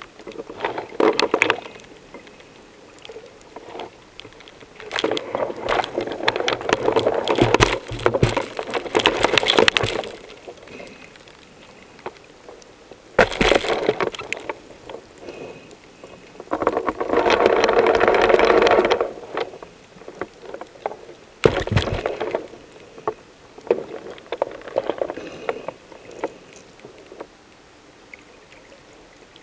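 Underwater sound picked up by a camera below the surface: irregular bursts of bubbling and rushing water lasting a second to several seconds, with quieter gaps and a couple of sharp knocks.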